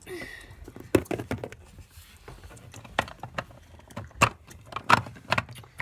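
Irregular clicks and knocks of small objects being handled and set down, several close together about a second in, then single knocks spread through the rest.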